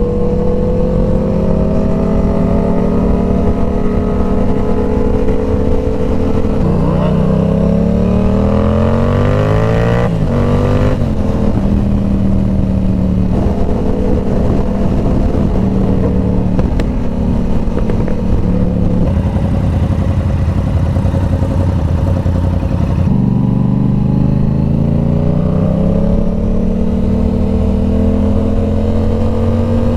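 Inline-four sport-bike engine at highway speed, mostly holding steady revs, and twice pulling up through the rev range under throttle, about a quarter of the way in and again near the end.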